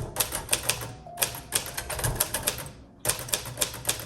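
1939 Royal Aristocrat portable manual typewriter being typed on: its keys and typebars striking in quick runs of sharp clicks, with a short pause about two and a half seconds in before the typing resumes.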